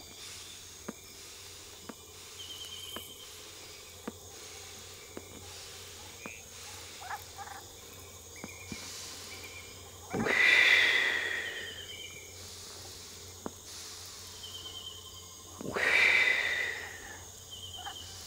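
A man blowing out pipe smoke in two long, loud hissing exhales, the first about ten seconds in and the second about sixteen seconds in. Behind them are faint clicks about once a second and short high insect chirps.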